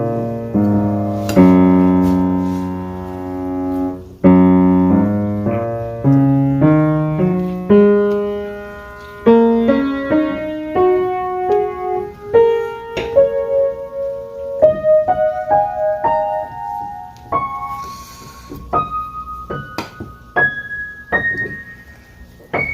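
Piano music: slow sustained chords, then a line of single notes climbing step by step in pitch and growing lighter and quieter.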